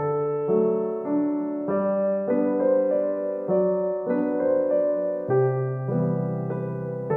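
Background music played on piano, with a melody of notes changing about every half second over held bass notes.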